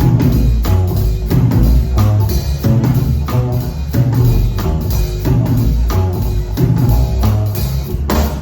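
Live rock band playing with a drum kit keeping a steady beat of about two hits a second over a deep bass line and sustained keyboard or sampler tones.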